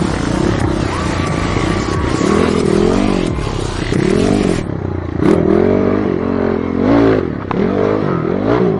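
Dirt bike engines revving, the pitch rising and falling again and again.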